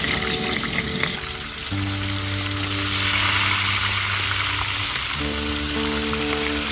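Whole fish frying in a pan of hot oil: a loud, steady sizzle from the bubbling oil around the fish. Background music with sustained notes plays underneath.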